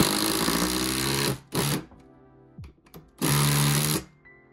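Cordless power driver driving fasteners through a Powerwall wall bracket into the wall studs, in three bursts. The first runs about a second and a half with its pitch climbing, then comes a short burst, then one of about a second near the end.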